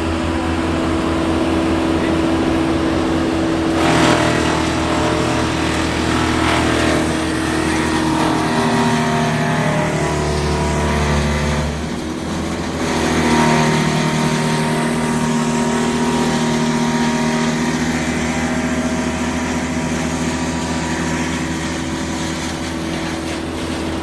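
Wood chipper running steadily while chipping tree branches, with a sharp crack about four seconds in. About eight seconds in, its pitch sinks, stays low for a couple of seconds, then rises back.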